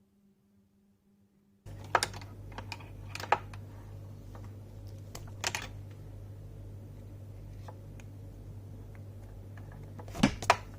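Keys being pressed on a TVS Gold mechanical keyboard with clicky Cherry MX Blue switches: scattered single keystrokes rather than fast typing, a few much louder than the rest, over a low steady hum. The sound starts abruptly a couple of seconds in.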